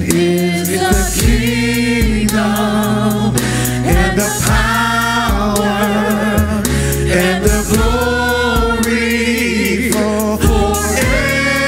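Gospel worship music: voices singing a held, wavering melody over instrumental backing with a steady bass and a regular beat.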